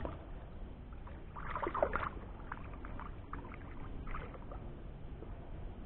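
Faint water splashing and sloshing around a kayak while a hooked catfish is fought at the side, with a louder burst about a second and a half in and a few light clicks after it.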